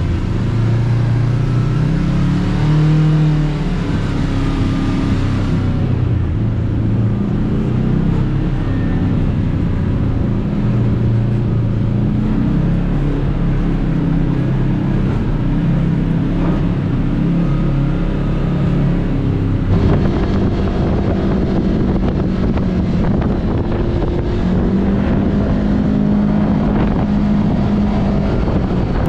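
Kawasaki KRX 1000 side-by-side's engine running at low speed, its pitch rising and falling as the throttle comes on and off. The tone changes abruptly twice.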